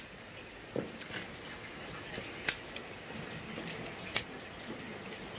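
Pork belly sizzling on a round griddle pan, with a few sharp clicks of chopsticks against the pan as the meat is moved; the two loudest clicks come about two and a half and four seconds in.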